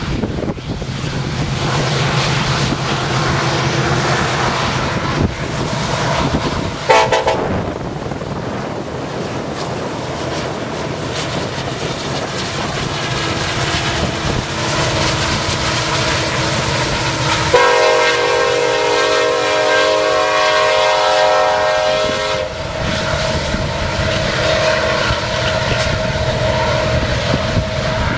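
Freight train led by CN SD70M-2 and SD70I diesel locomotives passing close by with a steady rumble, then grain hopper cars rolling past with clickety-clack. The locomotive horn gives a brief toot about seven seconds in and a blast of about five seconds around eighteen seconds in, the engineer's salute to the railfan. A steady tone carries on through the last few seconds.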